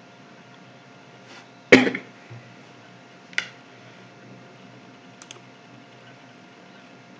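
A few sharp clicks and knocks over quiet room tone: a loud one about two seconds in, a shorter one about a second and a half later, and a faint quick double click near the end, the click of a computer mouse.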